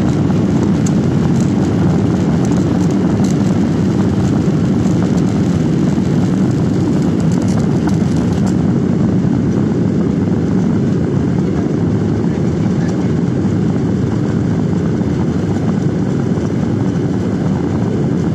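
Jet airliner's engines and airflow heard from inside the cabin as a steady low rumble while the plane taxis.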